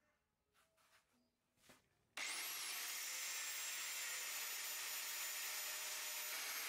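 A few light clicks, then an angle grinder with an abrasive cut-off wheel is switched on about two seconds in. It whines up to speed and runs steadily, and its pitch drops slightly near the end.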